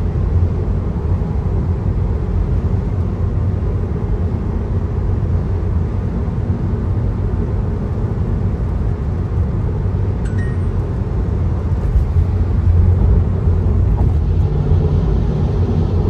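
Steady low rumble of a car driving at highway speed, heard inside the cabin: tyre and engine noise.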